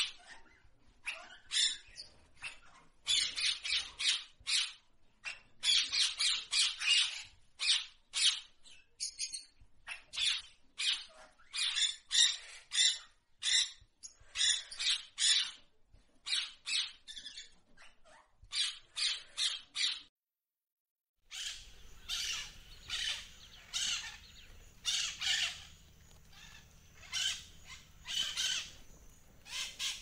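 A flock of budgerigars chattering: rapid, high-pitched chirps and squawks overlapping one another. The sound drops out completely for about a second about two-thirds of the way through, then the chattering resumes with a faint low hum beneath it.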